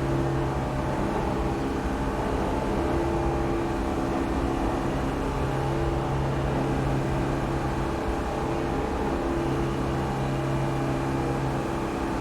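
New York City subway station ambience: a steady low rumble with a mechanical hum that swells and eases every few seconds, with no single event standing out.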